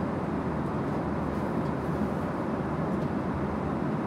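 Steady rush of Boeing 777-300ER cabin noise in cruise, the constant drone of engines and airflow heard inside the cabin, with a few faint clinks of cutlery on plates.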